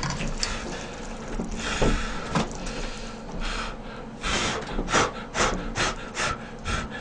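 Freshly boiled instant ramyeon noodles being slurped in a string of short, quick sucks starting about four seconds in. Before that come a few light clicks of metal chopsticks against the bowl.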